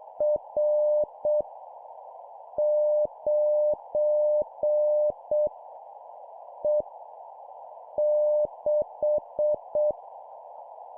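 Morse code (CW) practice tone at 7 words per minute, sending random letters and numbers. A single steady-pitched beep is keyed in short dits and long dahs with pauses between characters, over a continuous steady hiss.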